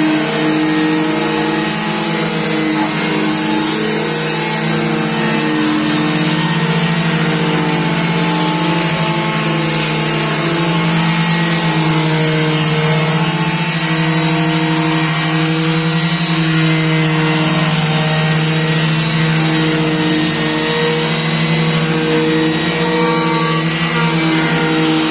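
Electric sander running steadily against wood, its motor hum shifting slightly in pitch under load over a constant hiss of abrasive on the surface.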